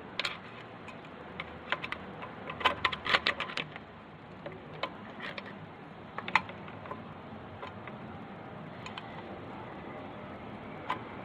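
Irregular light metallic clicks and taps as the shift selectors of a Tremec TKO 600 transmission are worked into place, with a quick cluster of clicks about three seconds in, then occasional single clicks.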